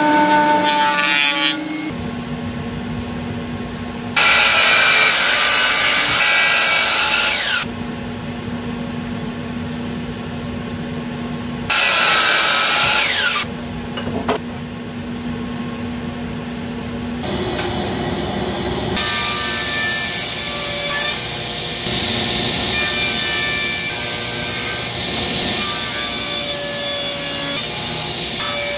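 DeWalt miter saw cutting through a thin wood strip twice, each cut loud and a few seconds long. From about two-thirds of the way through, a drum sander runs steadily.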